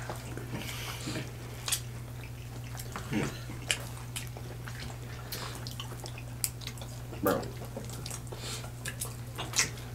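Eating sounds: scattered wet smacks and small clicks from several people eating seafood boil and chicken wings with their hands, over a low steady hum.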